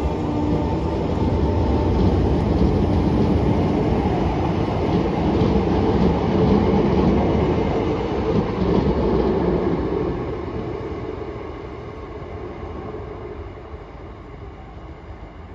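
Northern electric multiple unit running along the platform and away, its wheels and running gear rumbling loudly. The noise fades from about ten seconds in as the train draws off into the distance.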